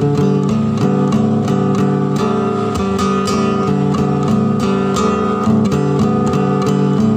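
Music: acoustic guitar strummed in a steady, even rhythm.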